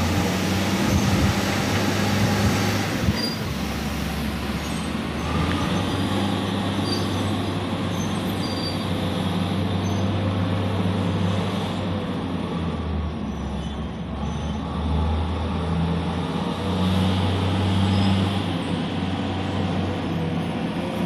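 Steady low drone of heavy diesel machinery on a coal-loading ship, swelling and easing in strength, with a rushing hiss over it.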